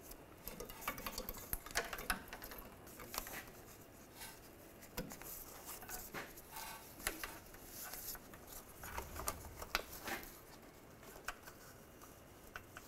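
Faint, scattered light clicks, taps and rubbing of gloved hands handling and routing an ABS wheel-speed sensor wire along the rear suspension.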